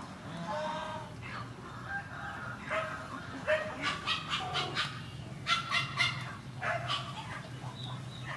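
Short, repeated calls of farmyard animals, with a denser run of sharp calls from about three and a half to seven seconds in, over a low steady hum.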